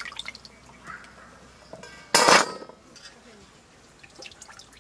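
Aluminium bowls and plates clinking, with one brief loud metallic clatter about two seconds in, and small sounds of water as cut vegetables are handled in a bowl of water.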